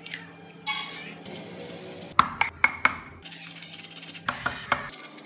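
Small metal hand tool clicking and tapping sharply against a carved wooden workpiece: a quick run of about four clicks a little over two seconds in, and three more after four seconds, with a short scraping swish before them.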